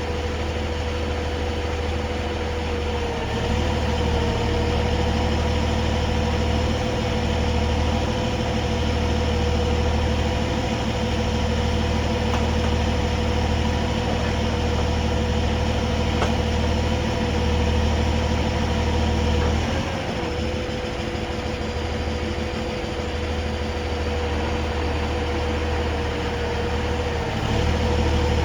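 Heavy tow truck's diesel engine running steadily with a constant whine over it. The engine note rises a little about three seconds in and again near the end.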